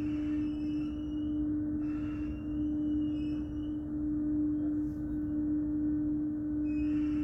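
Nyon aerial tramway machinery running while a cabin travels in on its ropes: a steady electric hum over a low rumble, with short high-pitched squeaks now and then.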